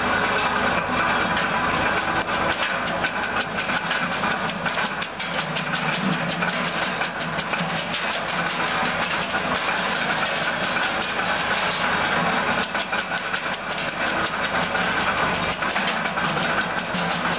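Homemade tractor-mounted wood chipper chopping branches fed into its hopper: a fast, continuous crackle of cutting over the steady running of the tractor engine.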